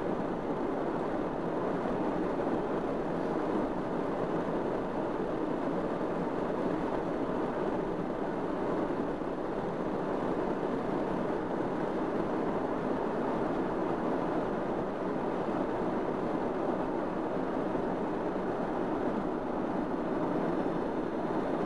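Steady engine and tyre road noise of a car driving at speed, heard from inside the cabin.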